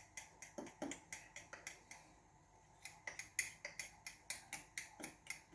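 Pancake batter being stirred in a mixing bowl, the utensil clicking against the side of the bowl about four times a second. The stirring stops for about a second near the middle, then resumes a little louder.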